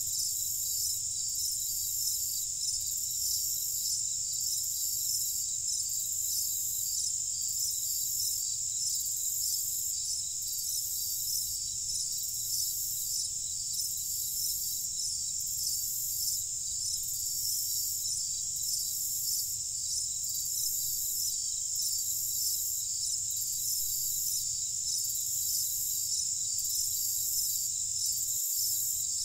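Steady night chorus of crickets, a dense high-pitched trilling with a faint pulsing shimmer above it about once a second, over a faint low rumble.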